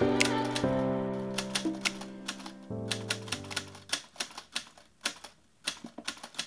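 Typewriter key-click sound effect tapping a few clicks a second, over background music of held chords that fades away over the first four or five seconds, leaving the clicks alone near the end.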